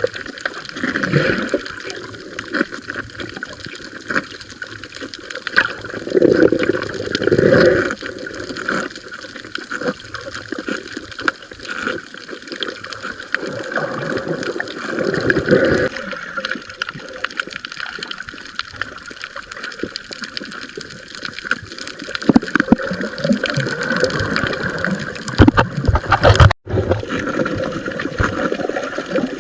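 Water gurgling and sloshing around a camera held in the sea while snorkeling, with irregular louder surges every few seconds. It cuts out briefly near the end.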